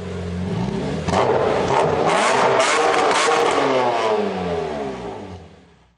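Car engine sound effect: a steady hum that surges loudly about a second in, then falls in pitch and fades out, with several sharp crackles over the loudest part.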